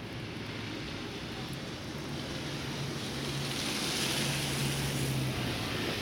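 A motor vehicle passing unseen on a street: a low engine hum and a rising hiss build from about two seconds in, reach their loudest past the middle, then ease off, over a steady outdoor background noise.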